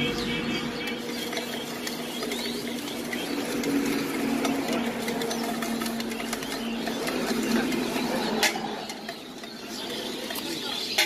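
Jhalmuri (spiced puffed rice) being shaken in a lidded steel tin: a fast, continuous rattle of the puffed rice against the metal. Under it runs a steady low hum that stops about eight seconds in.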